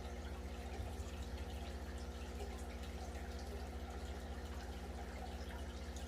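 Steady low mechanical hum with faint dripping, trickling water and small ticks.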